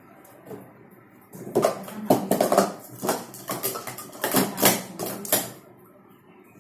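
Plastic sport-stacking cups being stacked up and down at speed on a mat, a quick run of light clacks and taps. It starts about a second and a half in and stops after about four seconds.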